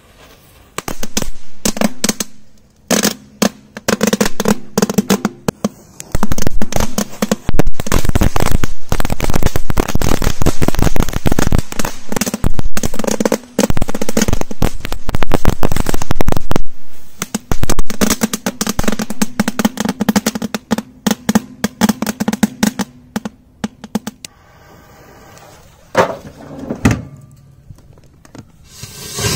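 A long, rapid string of firecracker bangs and crackles going off inside a metal gas cooker, lasting a little over twenty seconds before dying away. A single bang follows a couple of seconds later.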